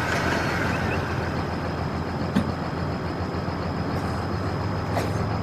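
Vehicle engine running at a steady low drone with road noise while driving, broken by two short clicks, about two and a half and five seconds in.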